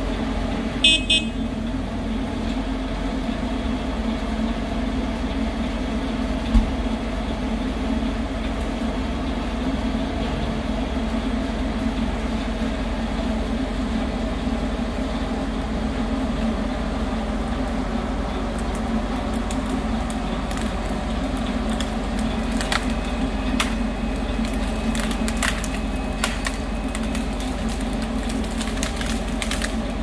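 Truck-mounted crane's engine running steadily, with two short high-pitched toots about a second in. A scatter of sharp cracks comes in the last third as the load comes down.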